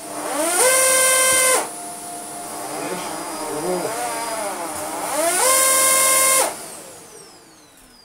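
Shark upright vacuum cleaner's motor running up to full speed for about a second, dropping back to a lower, wavering run, surging to full speed again about five seconds in, then spinning down with a falling pitch. This is the machine whose push-button switch is known not to work properly.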